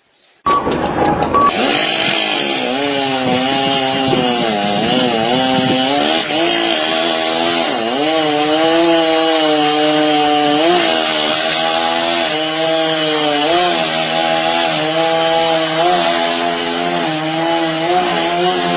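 A motor running hard, its pitch wavering up and down; it comes in abruptly about half a second in.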